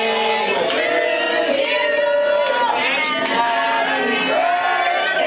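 Karaoke singing: a man and a woman singing into microphones over a backing track, the voices holding long notes.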